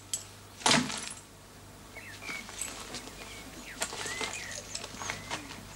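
A single sharp knock about half a second in, then small clicks and faint bird chirps over a quiet background.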